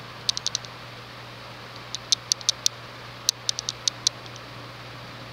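Casablanca Wailea ceiling fan with wicker blades and a 153x20mm motor running in reverse: a steady low motor hum under a soft whoosh of moving air. Small clusters of light, sharp ticks come every second or so.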